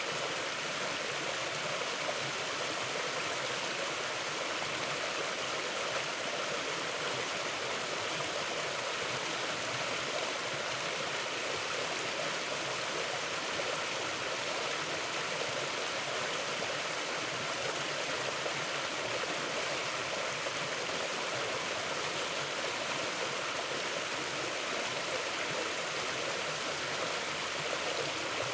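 Mountain river flowing: a steady, even rush of water with no breaks.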